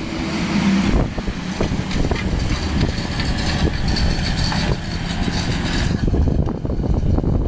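Fendt 926 Vario tractor's six-cylinder diesel engine running under load as it pulls a disc harrow through the field. A hiss in the upper range drops away about six seconds in.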